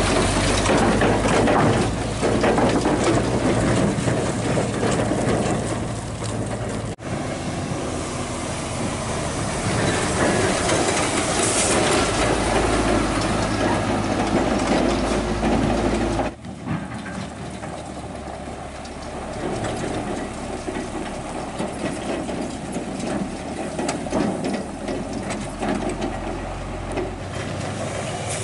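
Hino 500 FM320TI tractor truck's diesel engine running as it tows an empty lowboy trailer along a dirt road. The sound breaks off abruptly about seven seconds in and again about sixteen seconds in, and is quieter after the second break.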